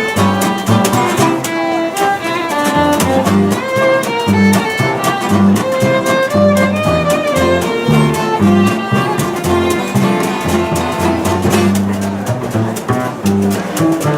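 Acoustic jazz instrumental: a violin plays a lead melody over a walking double bass and a strummed rhythm guitar that keeps a steady beat.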